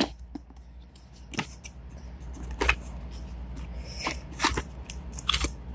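Small cardboard box being handled and its flaps pulled open by hand: a scatter of sharp cardboard clicks and scrapes at irregular moments over a low handling rumble.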